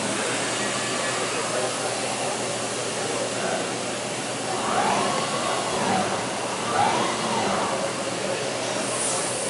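Steady rushing machine noise from an Amada Astro 165W robotic press-brake cell at work. A few short whines rise and fall in pitch about five and seven seconds in as the robot's servo motors speed up and slow down, repositioning the part.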